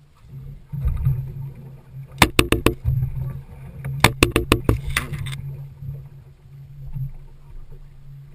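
Boat motor humming steadily, with two quick runs of sharp clicks or taps, four or five in the first and six or seven in the second.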